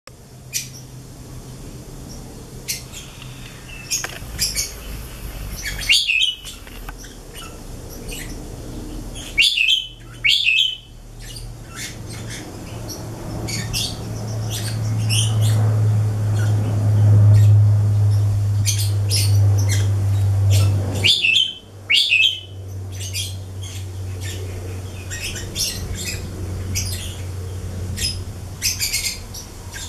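A caged black-collared starling calling: a long run of short chirps and whistles mixed with harsh squawks. A low hum runs underneath and grows louder in the middle.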